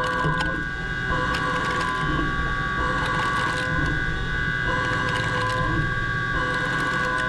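CNC mill-turn machine drilling holes in a cast iron brake rotor with a Kennametal HPR carbide drill. A steady spindle whine runs throughout, and a cutting note comes in for just under a second at a time, about every one and a half seconds, as the drill goes in hole after hole.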